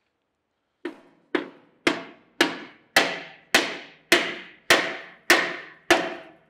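A hammer striking the crank handle of a Champion hand-crank forge blower to drive it onto its shaft: about ten sharp blows, a little under two a second, each ringing briefly, growing louder after the first few.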